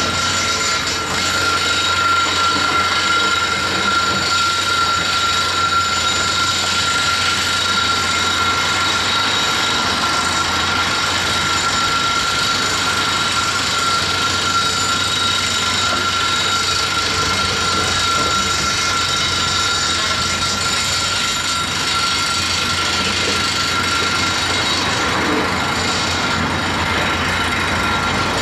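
Komatsu PC228US LC excavator working as it digs rubble: its diesel engine and hydraulics run under load at a steady level, with a steady high-pitched whine over the engine noise.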